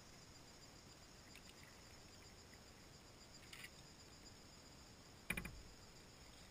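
Faint steady buzzing of insects, with a brief chirp about three and a half seconds in and a single sharp knock just after five seconds that dies away within half a second.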